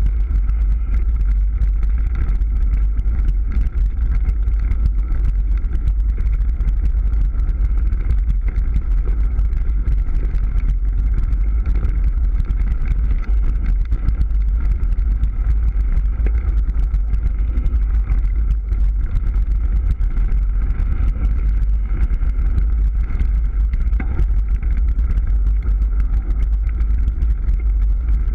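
Orange Gyro 29er mountain bike rolling fast over a dirt forest trail: a steady deep wind rumble on the microphone over the noise of the tyres on the ground, with constant small knocks and rattles from the bike on the rough surface.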